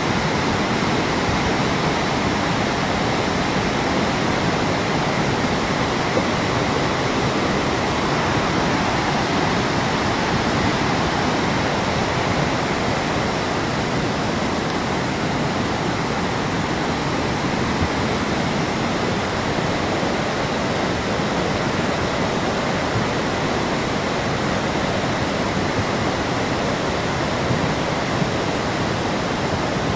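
A river in full flood, swollen with muddy floodwater, rushing past close by: a loud, steady, unbroken rush of fast-moving water.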